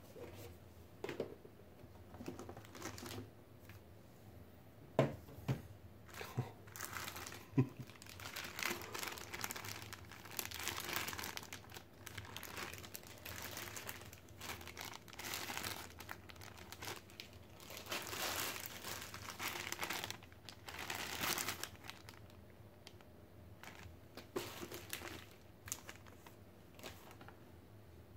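Clear plastic bags of board-game pieces crinkling as they are handled, in long irregular stretches. A few sharp knocks come several seconds in.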